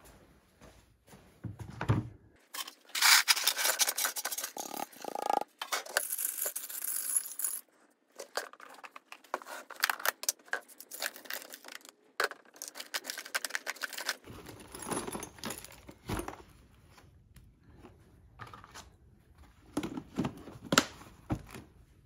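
Flakes and chunks of aluminum dross tipped and dropped into a plastic tub: several seconds of dense clinking and rattling, then scattered clinks and scrapes as the pieces are handled. A few sharper clicks near the end as the tub's lid is pressed on.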